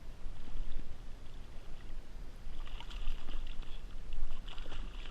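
Water sloshing around a float tube, with wind rumbling on the microphone and two short stretches of higher hiss, about three seconds in and near the end.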